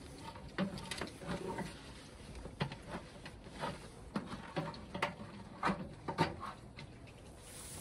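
Irregular light knocks, clanks and scrapes of gloved hands handling a galvanized steel can, about a dozen short impacts at uneven intervals.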